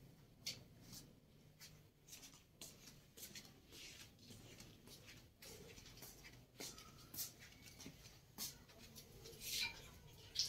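Quiet, irregular scuffs and clicks of footsteps in sandals on a hard floor, with a few sharper clicks among them.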